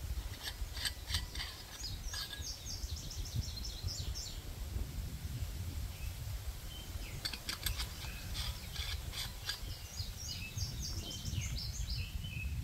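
A songbird singing two phrases of rapid, high chirping notes, the second starting about seven seconds in, over a steady low rumble of background noise.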